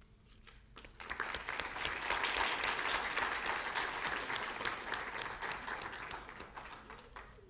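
Audience applauding: the clapping starts about a second in, swells, then fades away near the end.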